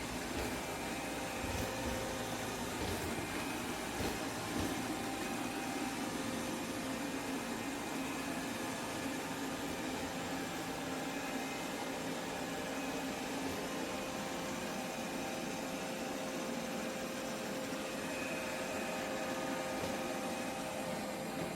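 Steady machine hum with a few faint steady whining tones, unchanging throughout.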